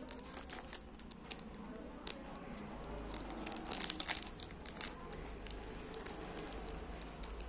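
Clear plastic packet of smiley-face erasers crinkling as it is handled, with a dense run of sharp crackles about three to five seconds in.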